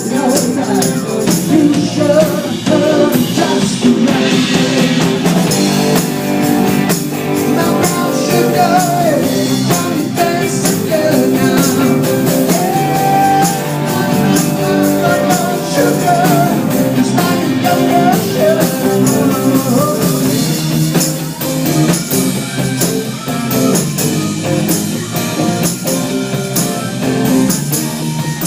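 Rock-and-roll style music with a singer and guitar, playing steadily.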